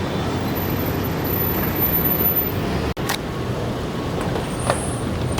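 Steady street traffic noise from passing road vehicles, with a brief dropout about three seconds in where the recording cuts.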